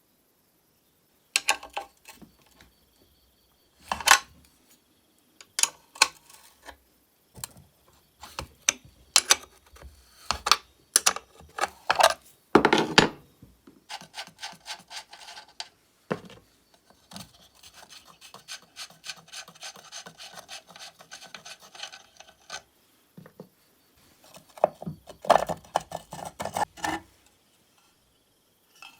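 An old chainsaw being handled and worked on at a bench: irregular knocks and clatters of its housing and parts, with scraping and rubbing in between and a longer stretch of steady rasping near the middle.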